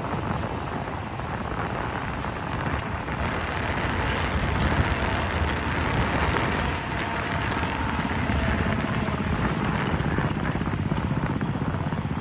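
Steady traffic noise and wind on the microphone while riding an electric bicycle along city roads.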